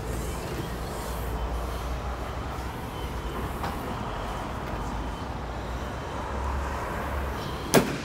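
Land Rover Discovery Sport engine idling as a steady low rumble, with one sharp click near the end.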